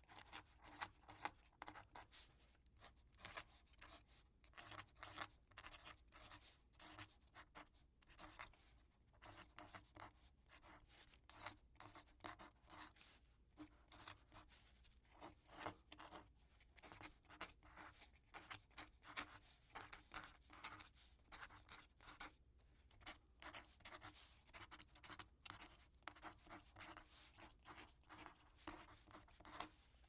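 Quill pen scratching as it writes: short, irregular scratchy strokes, several a second, broken by brief pauses.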